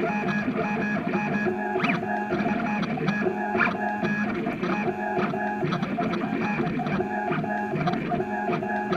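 Stepper motors of a home-built CNC router running, their whine stepping from pitch to pitch as the axes trace out the letters, with a persistent clattering rattle from a GoPro camera loose in its mount.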